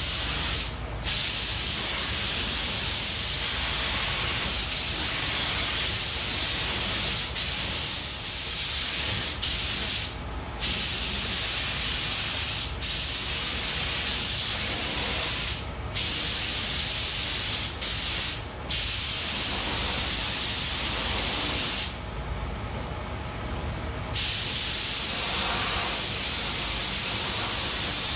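Air-powered gravity-feed paint spray gun hissing steadily as it lays on a coat of paint. The hiss is broken by several brief gaps where the trigger is let go, and by one longer pause of about two seconds past the middle.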